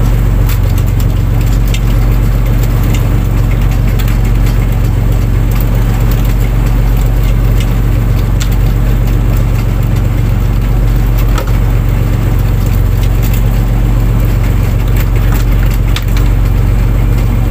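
Fishing boat's engine running steadily as a low drone, with scattered knocks and clicks over it.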